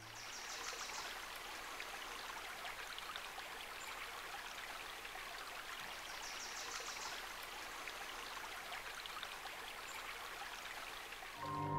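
Small forest creek running, a steady even rush of water. Two brief high trills sound over it, about a second in and again about six seconds in. Music comes in right at the end.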